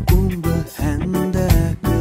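Background music: a song with a steady beat of about two beats a second under a melodic line.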